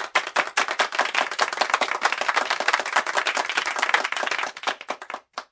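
Applause: many hands clapping in a dense patter that thins to a few separate claps near the end and then cuts off abruptly.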